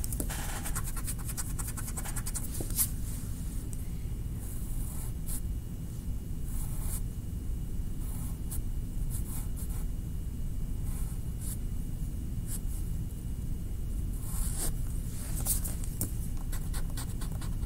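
Drawing strokes scratching on paper in short, irregular runs over a low steady hum.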